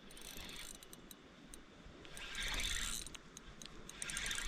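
Faint fishing reel being cranked: a run of small mechanical clicks, with two swells of rustling about two seconds in and near the end.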